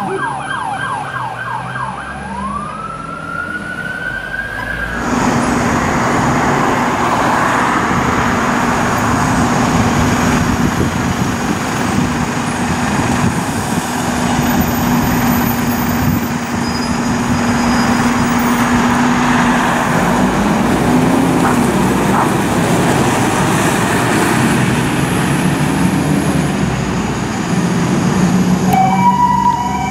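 Fire truck siren on a Scania aerial pumper: a rapid yelp, then a single rising wail winding up. After a cut, a heavy truck engine runs with a steady low hum under a dense rush of noise. Near the end the siren winds up again and breaks into a rapid yelp.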